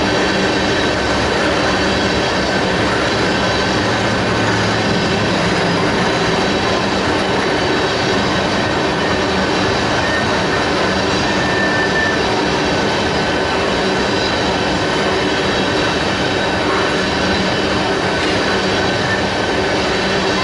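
Freight train rolling steadily past, steel wheels on rail making a continuous rumble with steady high-pitched squealing tones over it.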